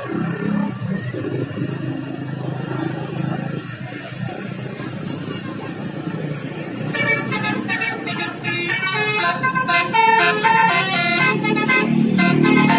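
Low rumble of a bus engine, then about seven seconds in a bus's 'basuri' telolet horn starts playing a fast tune of short, stepped notes that runs on to the end.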